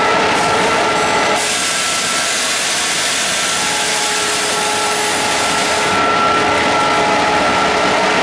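Alco WDM3A diesel locomotive running, heard inside the cab, a steady loud din with several high whining tones over it. About a second and a half in, a loud hiss starts and lasts about four seconds before dropping away, as the driver works the controls to bring in dynamic braking.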